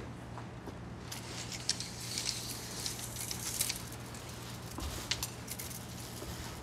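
Clicking and light rattling as a folding ruler is opened out segment by segment, mostly between about one and four seconds in, over a steady low hum.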